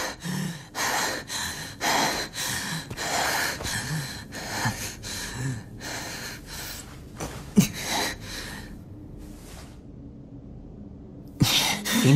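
A man panting hard in quick, ragged gasps, about two or three breaths a second, dying away about nine seconds in: the breathing of someone exhausted after a fight.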